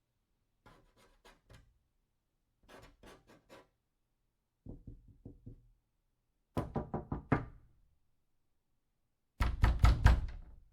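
Knocking on a door in five quick bursts of raps about two seconds apart, each burst louder than the one before, the last the loudest and longest.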